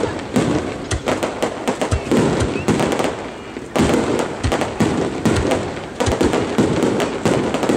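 Aerial firework shells bursting in rapid succession, many sharp bangs close together, easing briefly about three and a half seconds in before picking up again.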